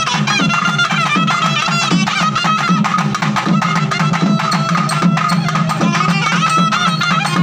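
Traditional Tamil festival music played live: rapid, continuous drumming with a wind instrument carrying a wavering melody over it.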